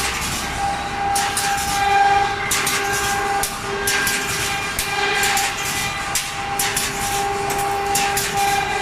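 Automatic steel-mesh welding machine running, with a steady electrical hum and repeated sharp clacks about twice a second as it cycles.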